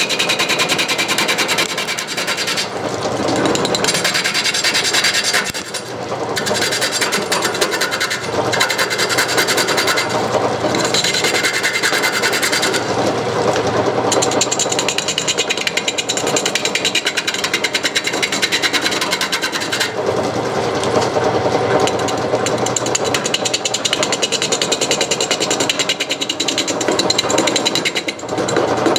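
A turning gouge cutting a wooden blank that spins off-center on a slow homemade lathe. The cut is an interrupted, rapid rough chatter, because the tool meets the eccentric wood each time it comes around. It eases off briefly a few times as the tool is drawn back.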